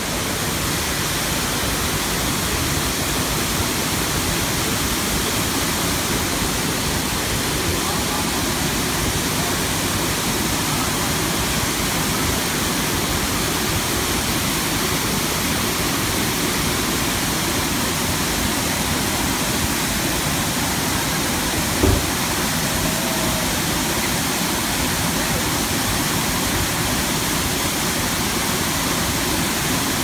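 Man-made waterfall pouring over stone walls into a pool: a steady rush of falling water. A brief low thump about 22 seconds in.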